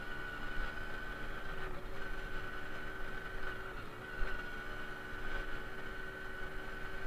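Simson S51 moped's single-cylinder two-stroke engine running while riding, a steady note over low rumble that dips briefly twice.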